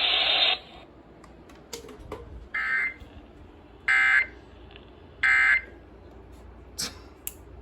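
Emergency Alert System end-of-message data bursts: three short, buzzy digital bursts about a second apart, signalling the end of the severe thunderstorm warning broadcast. Before them, a hiss cuts off about half a second in.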